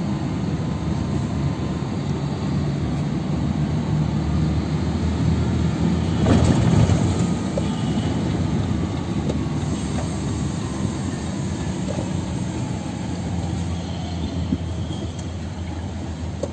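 UD Quester truck's diesel engine and road noise heard inside the cab while driving: a steady low rumble that swells briefly about six seconds in.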